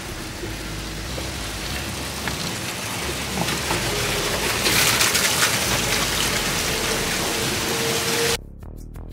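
Steady rushing hiss of noise, swelling louder about halfway through and cut off abruptly near the end.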